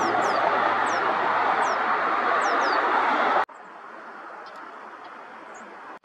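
Lesser goldfinches, adult and young, giving short, high, thin descending chirps about every half second over a steady loud rushing noise. A bit over three seconds in, the rushing noise cuts off suddenly, leaving a much quieter background with a few faint high ticks.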